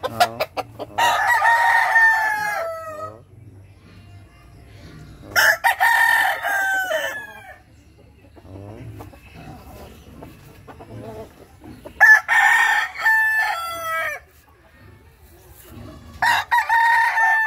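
Gamecock roosters crowing: four long crows, each about two seconds and dropping in pitch at its end, a few seconds apart.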